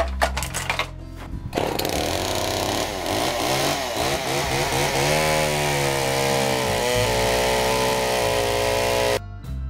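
Two-stroke chainsaw starting to run at about a second and a half in: the engine revs with its pitch dipping and rising, then holds at high revs and stops abruptly near the end. A few sharp clicks come before it starts.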